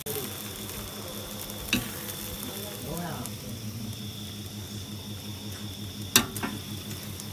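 Mie Aceh yellow noodles and beef stir-frying in a large wok, a steady sizzle. Sharp knocks, likely the metal spatula striking the wok, come about two seconds in and again near the end.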